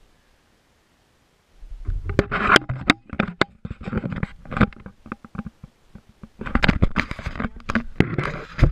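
Camera handling noise: knocks, scrapes and rubbing on the microphone as the camera is picked up and moved. It starts about one and a half seconds in, after near silence, and pauses briefly past the middle.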